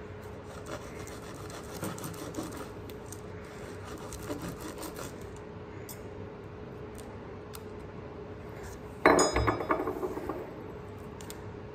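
Steel table knife sawing through fried dove meat on a paper plate, a faint rasping scrape with small clicks. About nine seconds in there is a louder clatter with a metallic ring as the knife is put down on the table.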